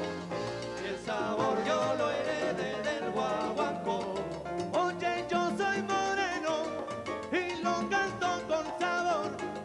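Live Latin band music: a conga beat under keyboard, with a male singer singing over it.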